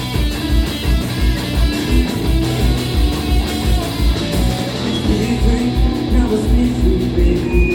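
Live punk rock band playing an instrumental passage: electric guitars over bass and a steady, driving kick drum beat.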